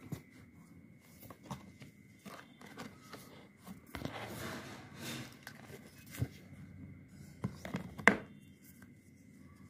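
Cardboard box and folded card-stock insert being handled by hand: scattered light taps and rustles, a longer rustle about four seconds in, and a sharp snap near the end, the loudest sound. A faint steady high tone runs underneath.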